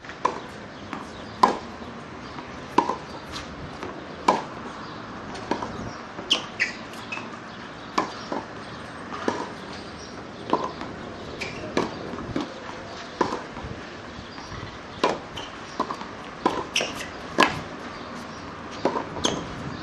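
Tennis rally on a hard court: racquet strings striking the ball and the ball bouncing, a sharp pop about every one to one and a half seconds.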